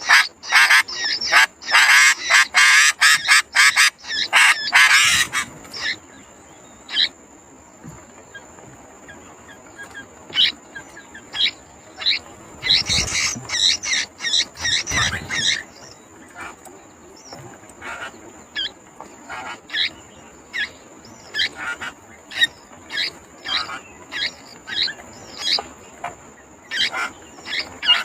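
Sooty-headed bulbuls chirping: loud, dense chattering for the first five seconds, then short, scattered chirps. A steady high insect whine starts about five seconds in and runs underneath.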